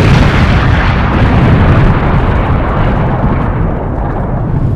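Loud explosion sound effect: a sustained blast of noise whose hiss slowly dies away while the deep low end stays strong.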